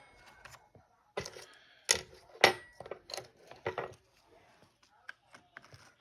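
Loose plastic keyboard keycaps clicking and clattering as they are handled and put back on the keyboard: a handful of sharp clicks in the first four seconds, then fainter, sparser ones.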